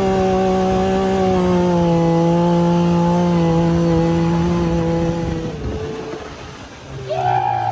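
Small engine running at high, steady revs, its pitch sinking slowly before it fades out about five and a half seconds in. Near the end a brief higher tone rises and falls over a lower engine hum.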